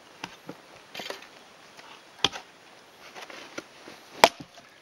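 Scattered knocks and clicks of cut deadwood and a folding saw being handled and set down in the snow, with a sharp knock about two seconds in and a louder one about four seconds in.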